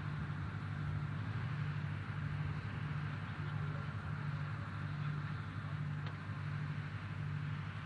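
Steady low hum with hiss over it, a low tone in the hum swelling and fading about once a second.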